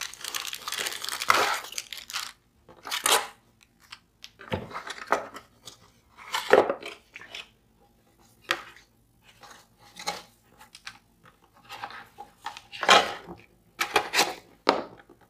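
Hands unpacking a cardboard box: a long scraping slide over the first couple of seconds as the inner box comes out of its carton, then irregular rustles, crinkles and light knocks of cardboard and plastic-bagged contents being handled.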